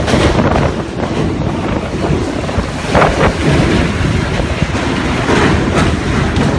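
Strong typhoon wind buffeting the microphone in gusts, a loud, continuous rushing noise with stronger surges about three seconds in and again past five seconds.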